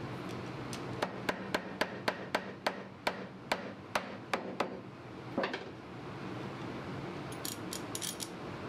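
Rubber mallet tapping a wooden leg joint of a chest frame to seat it, about a dozen quick, sharp taps at roughly three or four a second, then a harder double knock. Near the end come a few faint light clicks as the bar clamp over the joint is tightened.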